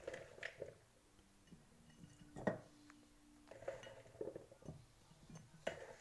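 Grapes being taken out of a bowl by hand and dropped into a large glass jar: scattered light clinks and taps, the sharpest about two and a half seconds in and another near the end.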